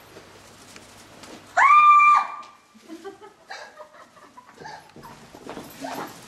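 A startled person's high-pitched scream about a second and a half in: a quick upward swoop, held on one pitch for about half a second, then broken off. It is followed by short, choppy voice sounds.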